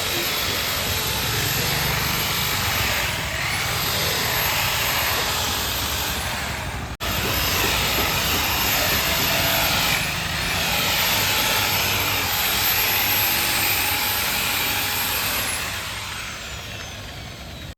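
Electric buffing machine running steadily on a headlight lens, its high motor whine dipping in pitch every few seconds as it is pressed on. The sound cuts out for a moment partway through and fades near the end.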